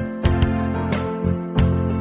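Gentle instrumental background music with strummed acoustic guitar.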